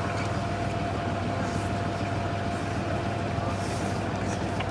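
A canal tour boat's motor running steadily under way: a low, even hum with a thin, steady whine above it.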